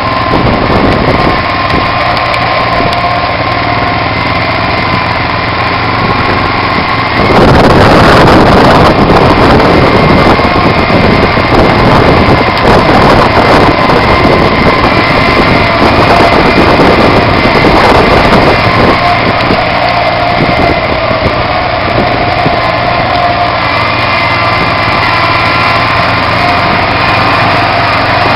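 Kubota three-cylinder diesel in a Bush Hog JBI garden tractor running steadily. About seven seconds in it turns louder and rougher, and stays that way.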